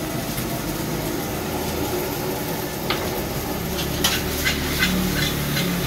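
Fried rice sizzling in a steel wok, stirred with a metal ladle that scrapes and knocks against the pan. There is one knock about halfway through and a quick run of knocks in the last two seconds.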